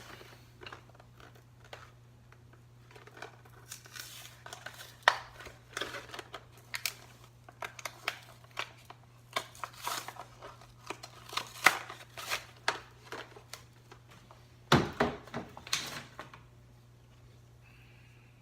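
Tire plug repair kit being handled and unpacked: plastic packaging crinkling, with a run of irregular sharp clicks and crackles that stops a couple of seconds before the end.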